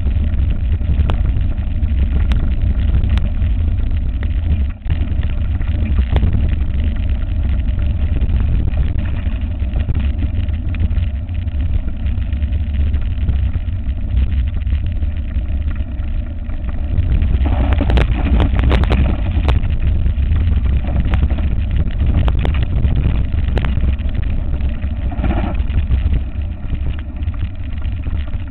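Wind buffeting a bike-mounted camera's microphone over the rumble of a mountain bike's knobby tyres rolling on a concrete lane, with sharp clicks and rattles from the bike shaking; the rattling grows busier about two-thirds of the way through.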